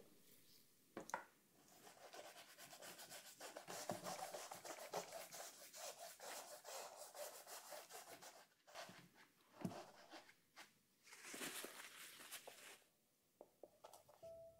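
Faint rubbing of a large brush stroking acrylic paint and glazing liquid across canvas, in a run of short, uneven strokes with brief pauses.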